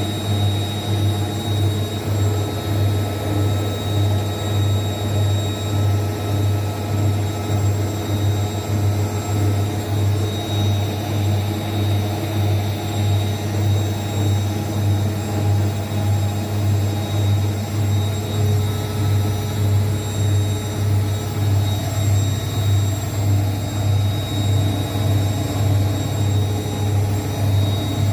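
Zanussi ZWSE680V front-loading washing machine in its spin cycle: the motor and drum run at a steady high speed with a deep hum that throbs regularly, a little over once a second, and a thin steady whine above it. The drum is riding on newly repaired shock absorbers.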